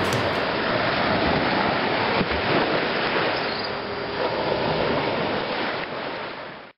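Ocean surf washing on a beach, a steady rushing noise that fades near the end and then cuts off.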